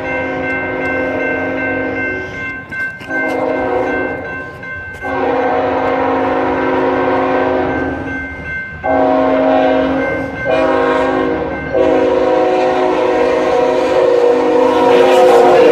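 Diesel freight locomotive's air horn sounding a chord of several notes in a string of long blasts with brief breaks between them, played as a horn show. The rumble of the train grows louder near the end.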